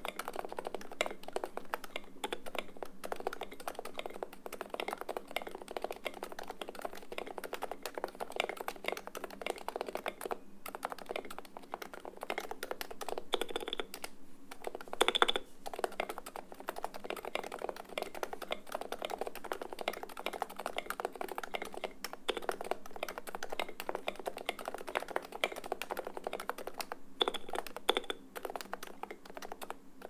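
Continuous fast typing on a Norbatouch rπ Topre-style keyboard with stock Novatouch domes, lubed 205g0 sliders and SA Magica keycaps: a dense run of key strikes with a few brief pauses and some louder strikes about halfway and near the end.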